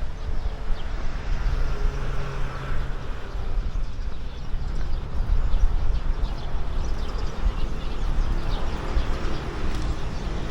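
Outdoor ambience recorded on the move during a run: a steady low rumble with faint bird chirps.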